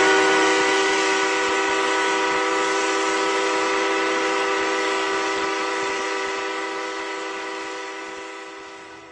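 Electric locomotive horn held as one long, steady chord of several notes over the hiss of the train, slowly fading away.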